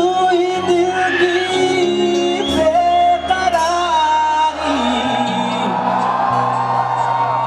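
Male singer singing live with a rock-style band of drums, keyboards and guitar, holding long notes over a steady bass line.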